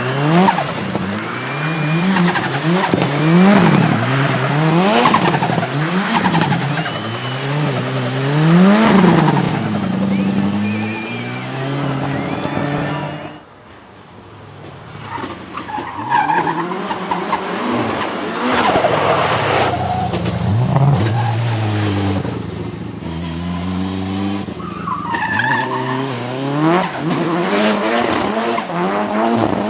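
Nissan 200SX drift car's turbocharged engine revving up and down over and over, about once a second, as the throttle is worked through a drift, with tyres squealing. About 13 seconds in the engine falls away for a moment, then picks up and revs again.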